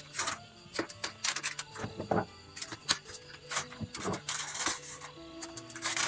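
Aluminium foil crinkling, with irregular soft clicks and taps as pieces of vegetable are set down on it.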